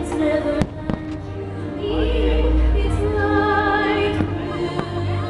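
Aerial firework shells bursting, with two sharp cracks about half a second and a second in and a deep low rumble around two seconds in, over the show's music with singing.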